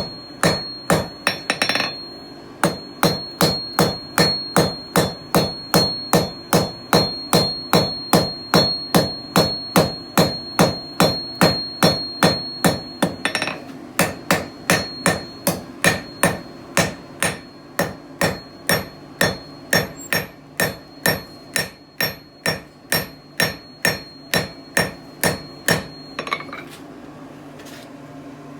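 Blacksmith's 3.5 lb hammer striking hot steel on an anvil at an even pace of about two to two and a half blows a second, drawing out the bar, with a steady high ring beneath the blows. The hammering stops shortly before the end.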